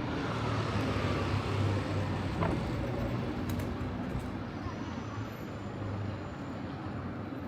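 City street traffic running past, with the low hum of a heavy vehicle's engine over a steady wash of road noise.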